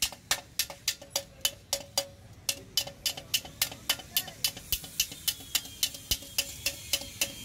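Small hammer tapping out a dent in the chrome front mudguard of a Honda CD 70 motorcycle: steady light blows at about four a second, each with a short metallic ring.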